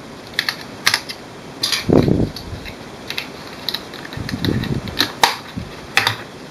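Irregular sharp plastic clicks and a couple of duller knocks from a small infrared remote control being handled as AAA batteries are fitted into it.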